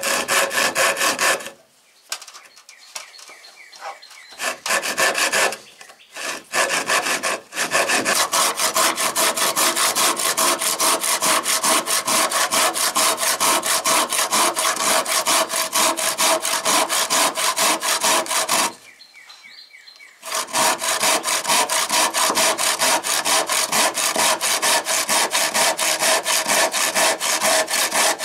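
Hand saw cutting across an old, weathered wooden post. A few short starting strokes give way to fast, even back-and-forth strokes, with a break of about a second and a half about two-thirds of the way through before the sawing resumes.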